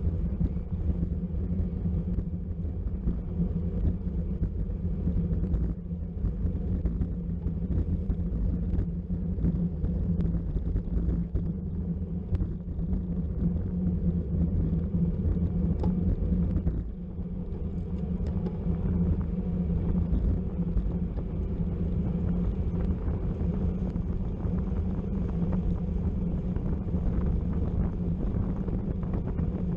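Steady wind rush over the microphone and low road rumble from a bicycle moving at speed in a criterium race.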